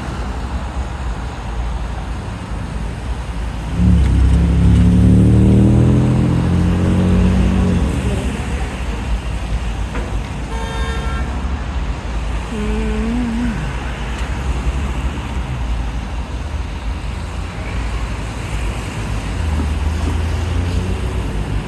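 Steady street traffic running at a busy intersection. A heavy vehicle passes loudly about four seconds in, its engine note rising slightly before it fades. Two brief pitched tones come near the middle, a high one followed about two seconds later by a lower one.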